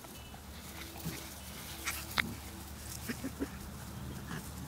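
Puppies play-wrestling, giving faint short vocal sounds, little growls and squeaks, with a few soft scuffling clicks.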